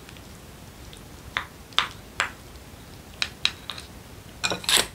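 Wooden spoon and chopsticks clicking and scraping against a ceramic bowl while stew is dished up. Three sharp clicks about half a second apart, then a few quicker, softer ones, and a louder clatter near the end.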